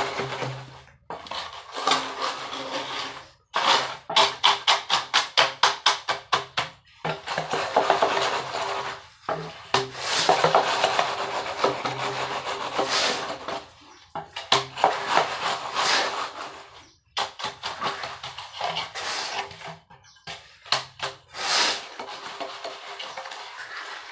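Straightedge scraping over wet concrete in runs of quick back-and-forth strokes, broken by short pauses, as a floor is screeded level by hand.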